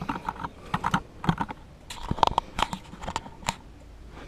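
Small hard plastic parts of a new RV fresh-water pump, its fittings and strainer, being handled and set down: irregular clicks and taps, coming in quick clusters.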